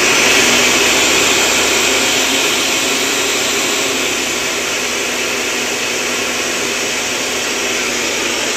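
Ninja 3-in-1 blender's motor running, spinning the blade assembly in the empty jar: a loud, steady whir, slightly louder in the first couple of seconds and then even.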